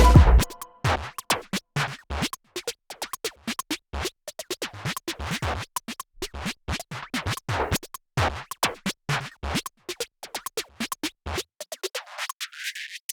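Quick, irregular scratching strokes of a pen on paper while drawing, each stroke brief with short gaps between; background music cuts off just at the start.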